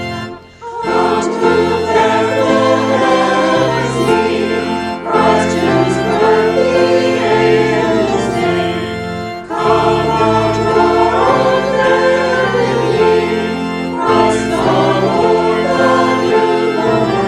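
Choir singing a hymn with keyboard accompaniment, in sustained chords. There is a short break about half a second in, then new phrases every few seconds.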